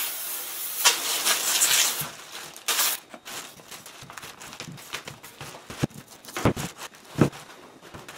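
Aerosol spray can hissing in a long spray for about the first two seconds, then a short spurt just under three seconds in. After that, plastic sheeting crinkles with small knocks as the wet driveline part is handled on it.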